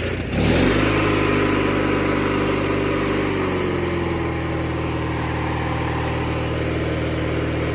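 1997 MTD Yard Machines riding lawn mower's engine catching about half a second in after cranking, then running steadily. Its pitch drops a little a few seconds in as it settles.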